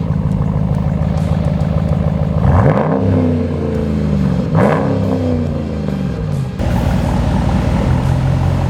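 2021 Ram 1500 engine idling through a newly fitted Redback Extreme dual 3-inch aftermarket exhaust, blipped twice, with the pitch rising and falling quickly each time, then settling to a steady idle.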